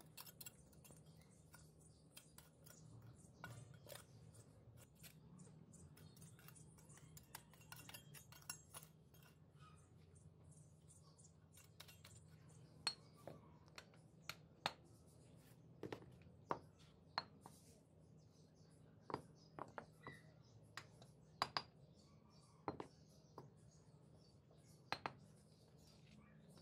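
Bricklaying with a hammer: light scraping and small knocks at first, then from about halfway on irregular sharp taps and clinks as bricks are knocked and set into place in mud mortar.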